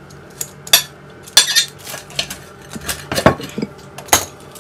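Ceramic dinner plate clinking and knocking on a stone worktop as it is handled, in a handful of irregular sharp clinks.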